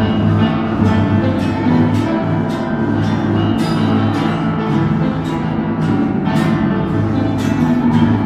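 Experimental industrial electronic music: a low bass note repeating in blocks under layered pitched tones, with sharp percussive hits at uneven intervals.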